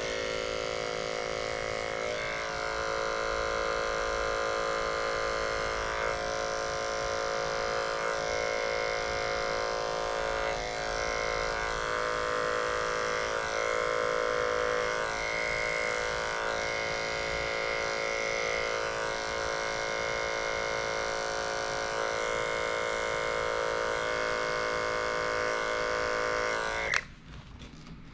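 Corded electric dog-grooming clipper fitted with a 30 blade running steadily, a constant buzzing hum, as it trims a puppy's paw pads. It is switched off about a second before the end.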